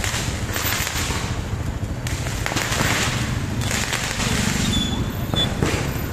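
Firecrackers going off in a dense, continuous crackle of pops, with a brief high whistle about five seconds in.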